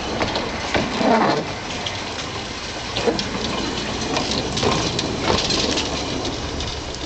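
Small narrow-gauge steam tank locomotive Britomart passing slowly at close range: a steady hiss with irregular knocks and clanks, swelling a few times. No whistle is sounding.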